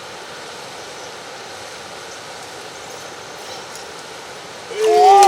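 Steady rush of flowing river water. Near the end a loud, wavering voice cries out suddenly.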